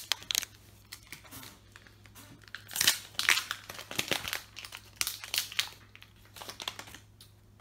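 A foil booster pack of trading cards being torn open by hand: irregular crinkling and tearing of the wrapper, loudest about three seconds in.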